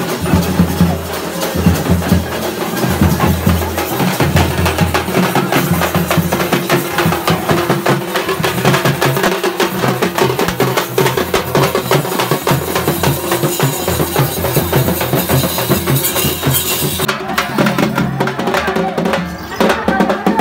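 Music with fast, busy drumming over a steady low bass.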